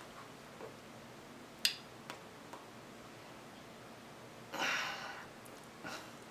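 Quiet room with a single sharp click about a second and a half in, a fainter tick just after, and a short breathy rush of soft noise lasting about half a second, a little over four and a half seconds in.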